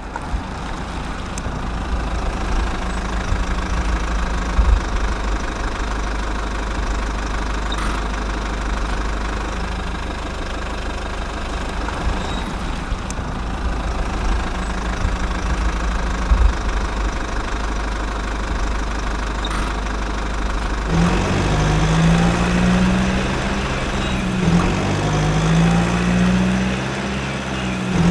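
Steady low engine rumble, like a truck idling. About twenty seconds in, a low, repeating pattern of stepping tones joins it.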